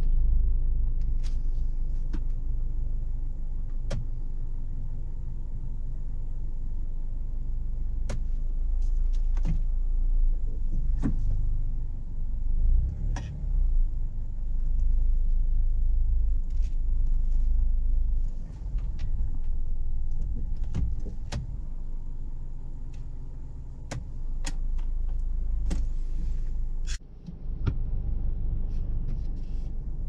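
Car running: a low, steady rumble with scattered sharp clicks and knocks.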